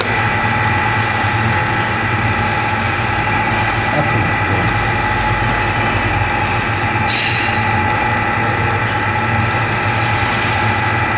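Fish-processing machinery running steadily: a constant mechanical hum with several steady whining tones, and a brief hiss about seven seconds in.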